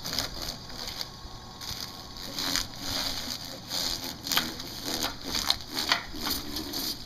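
Homemade chicken plucker, a spinning washing-machine drum fitted with rubber fingers, beating the feathers off a chicken held against it: irregular slapping and rasping, with several sharp slaps in the second half.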